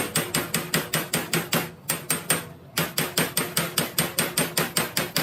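Rapid, even hammer blows on a metal part, about five or six a second, with a short break around two seconds in.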